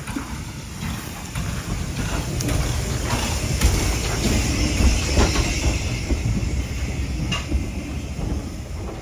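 Steam train on a heritage railway running along the track: a low rumble with scattered clicks from the wheels and a hiss, swelling louder in the middle and easing off towards the end.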